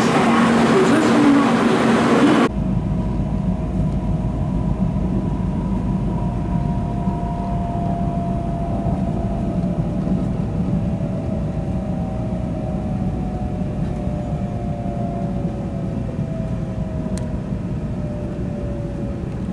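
Loud rushing noise on a Shinkansen station platform for the first two seconds or so. It then cuts to the inside of a moving Shinkansen train: a steady low running rumble, with a faint motor whine that falls slowly in pitch.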